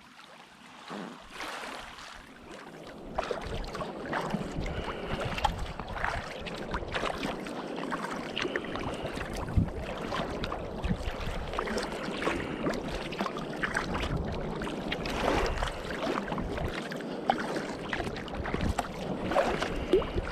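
Sea kayak being paddled through rolling waves: water splashing and slapping around the hull and paddle, with many short sharp splashes. It is quieter for the first three seconds or so, then louder and steady.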